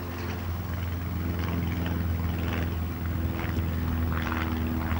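A steady low engine drone, with the swish of footsteps through tall grass about once a second.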